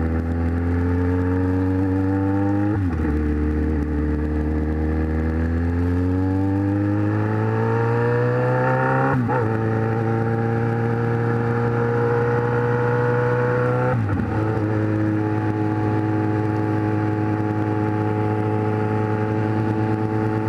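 Kawasaki Z1000's inline-four engine accelerating through the gears. The pitch climbs, drops at upshifts about three, nine and fourteen seconds in, and then holds steady at cruising speed.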